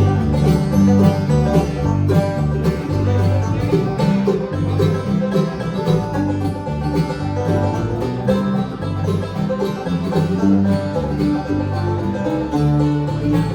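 Bluegrass band playing an instrumental opening, with banjo and guitar picking over a steady alternating bass line and no singing.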